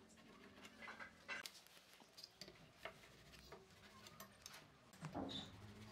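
Near silence with faint, scattered small taps and scratches from a pencil and steel rule marking out a wooden beam.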